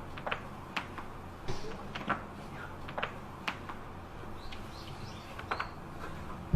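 A person cracking his neck: a series of short, sharp cracks and pops at irregular intervals, about seven in all, over a faint low hum.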